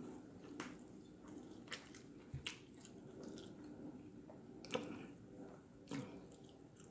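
A person chewing food with the mouth close to the microphone: soft wet chewing with scattered sharp mouth clicks and smacks, a couple of them louder near the end.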